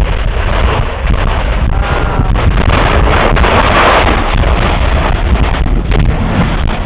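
Continuous loud roar of lava exploding and spattering where it pours into the sea, full of crackling blasts, with wind rumbling on the microphone.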